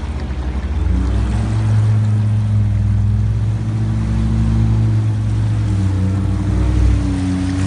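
Supercharged Yamaha GP1800R SVHO jet ski engine running under way, its pitch climbing about a second in and then holding steady, over a rushing hiss.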